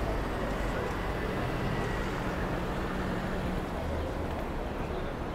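Steady city street traffic noise heard from a moving bicycle, with a low rumble underneath and a faint steady hum for a couple of seconds around the middle.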